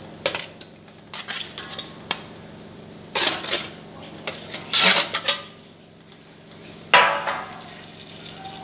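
Slotted steel spoon scraping and clanking against a metal serving tray and an aluminium cooking pot as raw chicken pieces are pushed into the pot. It is an uneven run of scrapes and clatters, the loudest a little after three seconds and around five seconds in. About seven seconds in comes one sharp metallic clank that rings briefly.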